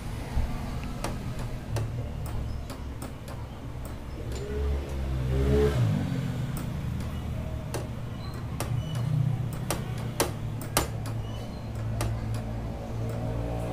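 Irregular sharp clicks and light taps, a dozen or so spread over several seconds, above a steady low hum.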